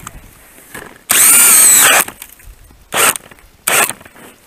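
Cordless drill spinning an ice auger into the ice, running for about a second and then cutting out, followed by two brief blips of the motor near the end. The drill keeps stopping partway through the hole, for a reason the operator can't work out.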